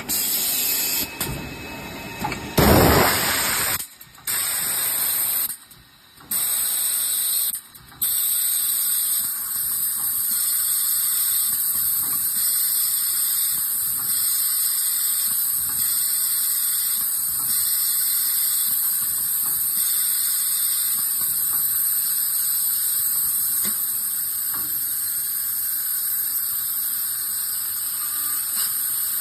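Six-sided CNC drilling machine running with a steady high hiss. The hiss cuts out briefly three times in the first eight seconds, and there is a louder burst about three seconds in.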